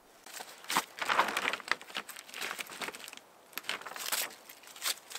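Clear plastic sheeting crinkling and rustling in irregular bursts as a hand handles and presses it.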